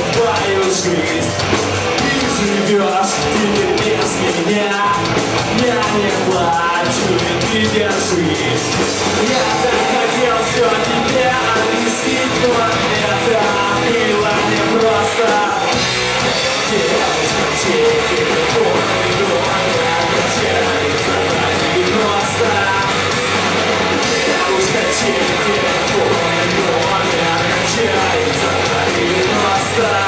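Rock band playing live: electric guitars, bass and drums with a fast, steady beat, and vocals.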